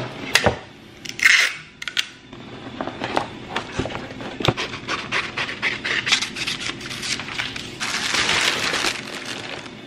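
Cardboard shipping box being handled and slid on a countertop, with paper sheets rustling, rubbing and small taps, then a plastic bubble mailer crinkling for about a second near the end.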